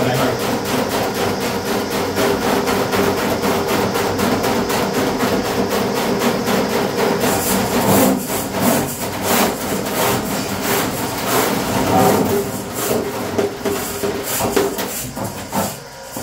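RIDGID K-50 sectional drain-cleaning machine running, its motor humming steadily while the spinning cable rattles and scrapes inside the drain pipe as it works through a clogged toilet stack. The scraping turns louder and more uneven about eight seconds in.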